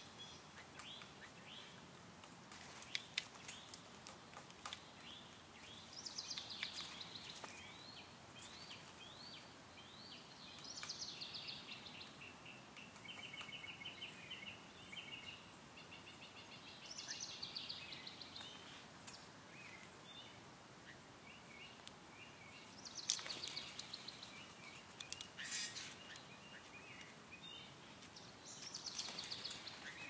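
A songbird sings a short warbling phrase roughly every six seconds, with quieter chirps between, over a faint outdoor hiss. A few sharp clicks cut in.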